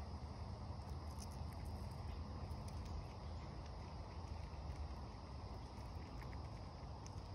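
Outdoor ambience: a steady low rumble under a constant high insect drone, with scattered faint clicks as an eastern chipmunk nibbles and husks sunflower seeds.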